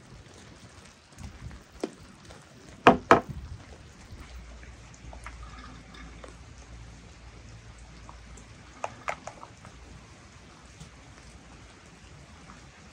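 Pomegranate seeds and quince pieces being dropped into glass bottles by hand, giving light ticks and patter against the glass. There is a pair of sharper knocks about three seconds in and a few more clicks near nine seconds.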